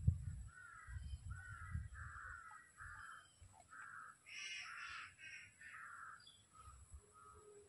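A crow cawing, a run of about a dozen short harsh calls roughly two a second, loudest a little past the middle.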